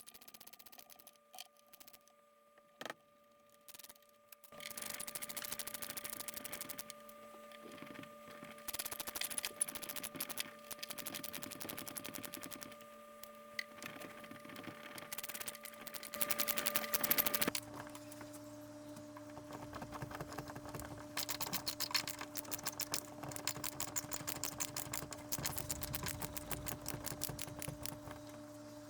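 Power drill driving screws to fasten a plate amp panel, its motor running with a rapid, even clatter in two long spells, about four seconds in to past halfway and again for the last several seconds. The motor pitch drops at the end of the first spell.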